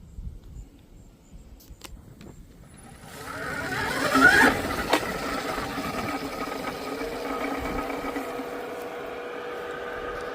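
Stark Varg electric motocross bike's motor whining. After a faint low rumble and a few clicks, the whine comes in about three seconds in, sweeps quickly up and down in pitch, then holds steady as a hum of several tones.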